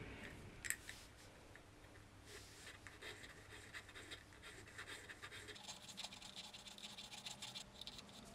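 Quiet scratching and scraping: one sharp click about a second in, then a dense run of short, fast strokes, as of a small hand tool working a hard surface.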